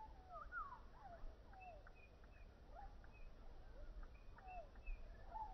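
Faint bird calls: many short chirps and whistled glides from several birds.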